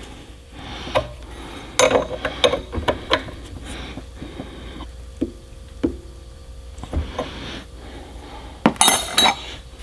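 Wrench clinking and knocking against a metal fitting as it is tightened into a fuel transfer pump: scattered sharp clicks, two of them ringing briefly near the middle, with a quick run of clinks near the end.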